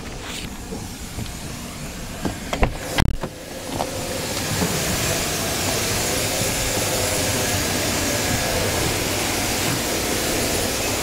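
A car door is handled and opened, with clicks and a couple of knocks, then from about four seconds in the steady rushing hiss of a car wash's vacuum station running, with a faint hum under it.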